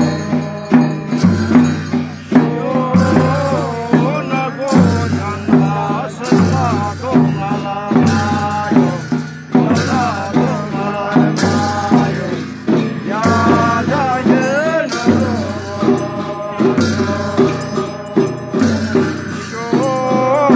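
Nepali folk dance music: a melody, with pitch bends like a singing voice, over a steady repeating drum beat and rattling percussion.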